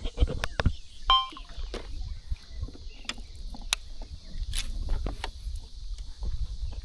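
Scattered clicks and knocks of gear being handled in a fishing kayak, over a low rumble of wind on the microphone and a steady high hiss.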